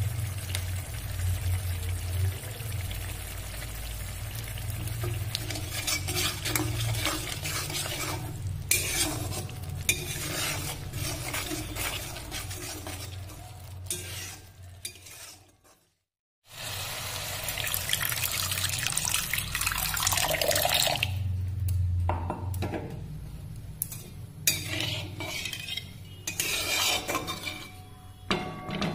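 Curry paste and water sizzling and bubbling in hot oil in a wok, with a spatula stirring and scraping the pan. The sound cuts out for a moment about halfway through, then carries on.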